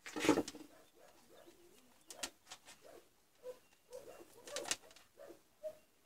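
Handling noise from a multimeter's test leads being picked up over a circuit board: a knock just after the start, then light clicks and rustles. Short, soft cooing calls from a bird, such as a pigeon or dove, are heard between them.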